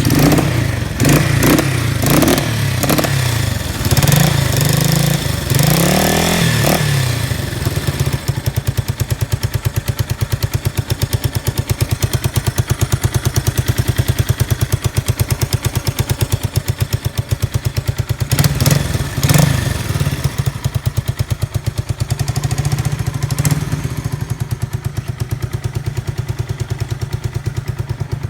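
Yamaha TW200's single-cylinder four-stroke engine running through a 4-inch SuperTrapp exhaust, just after starting. It is revved in several blips for the first seven seconds or so, then settles into a steady, evenly pulsing idle, with a few short throttle blips past the middle. It runs with no abnormal noise, as the seller says.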